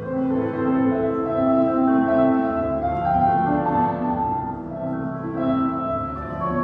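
Classical orchestral music playing as ballet class accompaniment: a sustained melody over held chords, growing louder just after the start.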